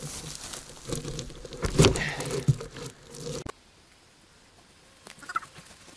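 Rustling and knocking of branches and wooden poles being handled in forest undergrowth, with two sharp knocks about two seconds in; the sound drops off suddenly about halfway.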